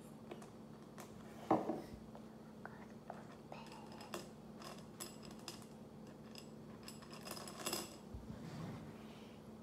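Jelly beans clicking and clinking against a glass bowl as a child's fingers pick through them, in small scattered clicks, with one louder knock about one and a half seconds in.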